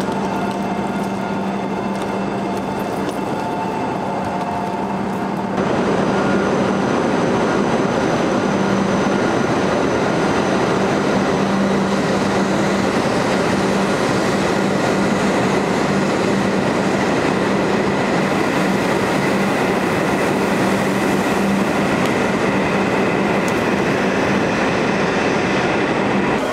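E7-series Shinkansen bullet train pulling out of a station platform: a steady electric hum and whine, then about five seconds in a louder rushing noise as the train gathers speed past the platform.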